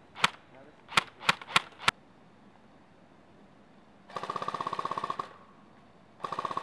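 Airsoft guns firing: five sharp single shots in the first two seconds, then two rapid full-auto bursts from an electric airsoft rifle, the first about a second long and the second about half a second, with the gearbox buzzing under the shots.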